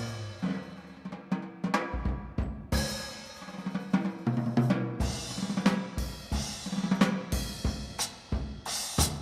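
Jazz drum kit playing a break on its own, the horns silent: snare and bass drum hits with cymbal and hi-hat washes in an uneven, swinging pattern.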